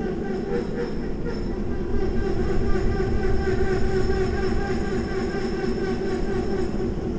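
A passenger train rolling slowly past just below, a steady drone from its locomotive with a low rumble of the cars, growing a little louder about two seconds in.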